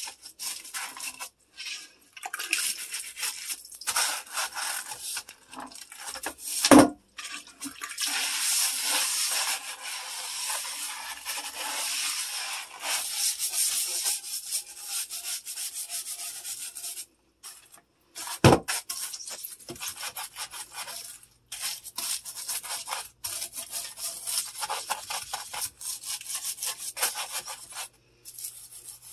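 Toilet brush scrubbing a porcelain toilet bowl: stretches of rough bristle scrubbing broken by short pauses. Two sharp knocks stand out, the loudest about 7 seconds in and another about 18 seconds in.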